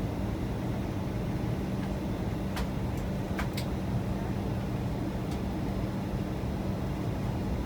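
Airliner cabin noise in flight: a steady low roar of engines and airflow with a constant hum. A few faint clicks come through around the middle.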